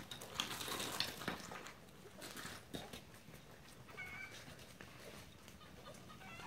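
Great Pyrenees–Maremma puppies nursing: faint rustling and suckling noises, strongest in the first couple of seconds, with one short, thin squeak about four seconds in.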